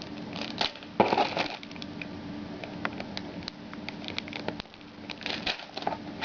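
Cardboard and plastic packaging rustling and clicking as parts are taken out of a motherboard box, with a louder crackle about a second in. A faint steady hum runs underneath until a little after halfway.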